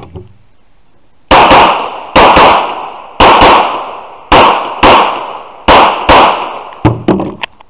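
A competition pistol fired rapidly through a stage, starting about a second in. The shots come mostly in quick pairs (double taps), about a dozen shots in all, each sharp and echoing. A few lighter, quicker cracks follow near the end.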